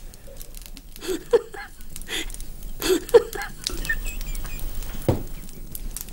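A woman's soft chuckling, a few short laughs spread through, with a single knock about five seconds in.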